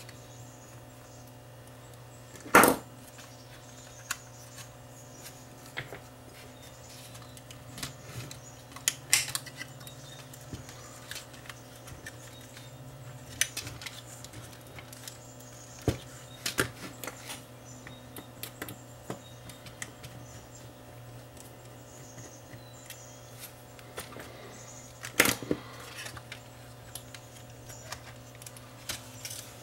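Scattered clicks and taps of small plastic and metal parts as a Sony CCD-TR81 Hi8 camcorder is taken apart by hand and its circuit boards lifted out, with two louder clacks, one about two and a half seconds in and one near the end. A steady low hum runs underneath.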